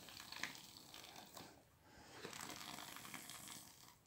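Faint hiss of an aerosol shaving-foam can dispensing foam into a bowl: a few short spurts, then a longer steady spray starting about two seconds in.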